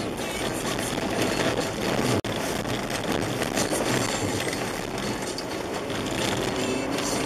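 Skoda Yeti's 1.8 TSI turbo four-cylinder engine running under way, mixed with a steady rumble of tyres on packed snow and ice, heard inside the cabin. The sound cuts out for an instant just past two seconds in.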